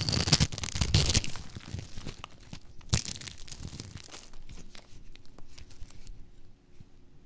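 Crunchy dry soap crumbling as hands break a grid-scored bar into small cubes, a dense crackling that is loudest in the first second or so. A sharp snap comes about three seconds in, followed by softer crunches.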